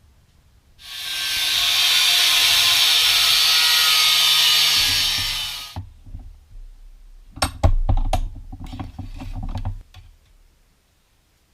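A handheld power tool runs for about five seconds, spinning up over a second, running steadily, then winding down. About a second and a half later comes a few seconds of metallic clatter and knocks as tools or parts are handled.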